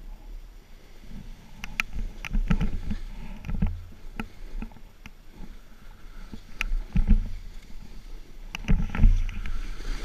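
Snowboard riding through deep powder snow: the board's swishing and scraping with low rumbles and knocks through the camera mount, in uneven swells, with scattered sharp clicks.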